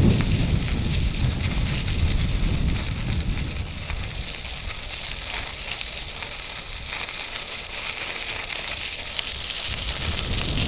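Wind buffeting the microphone of a moving bicycle, with a steady crackling hiss of rolling noise; the low buffeting is heavy for the first few seconds, then eases.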